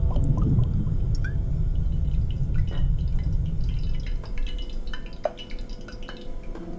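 Water dripping: scattered single drops plinking, some with a short rising blip, over a low rumble that fades away a little past halfway.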